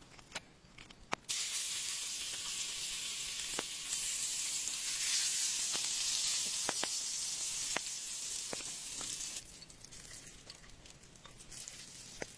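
Food sizzling in hot oil in a pan: a loud, high hiss that starts suddenly about a second in and stops abruptly near the end, with scattered sharp pops.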